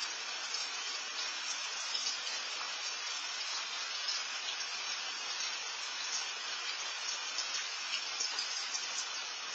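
Steady rain falling, an even hiss with faint scattered patters, heard through an outdoor security camera's microphone.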